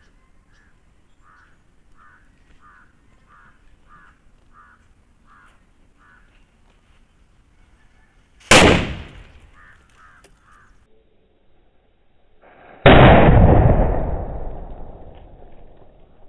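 A thick Diwali firecracker bursting with one sharp bang about eight seconds in, followed some four seconds later by a second, deeper boom that dies away slowly over about three seconds. Before the bang, a bird calls repeatedly, about one short call every second.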